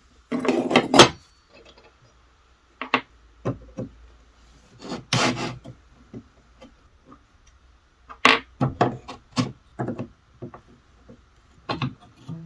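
Irregular strokes of hand scraping or filing, each under a second, with pauses between, as rust or old finish is worked off a hand plane's parts.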